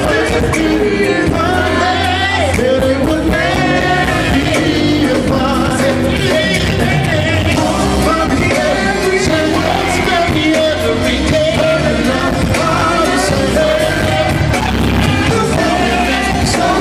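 Male R&B vocal group singing live into microphones over a band accompaniment with a steady bass, amplified through a concert PA.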